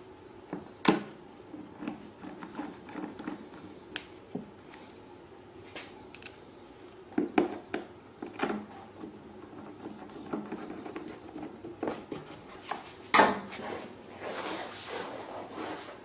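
Scattered clicks, taps and knocks of a hand screwdriver and screws against the plastic side cover of a Predator 2000 inverter generator as the cover's screws are driven back in. The loudest knock comes near the end, followed by a brief rustle of hands on the panel.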